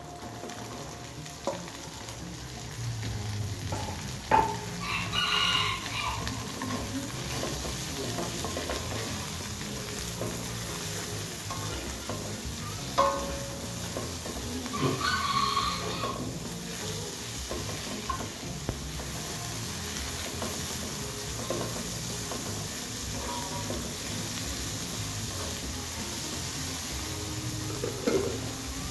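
Green beans, shallots, garlic and chilies sizzling in hot oil in a wok, stirred and tossed with a spatula that scrapes and now and then knocks against the pan. A rooster crows twice, about five and fifteen seconds in.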